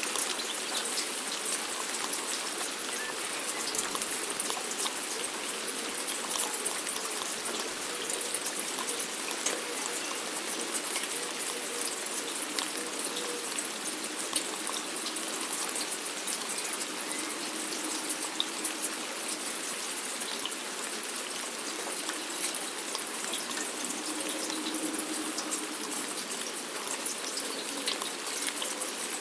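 Steady rain falling: a continuous hiss dotted with many small drop ticks.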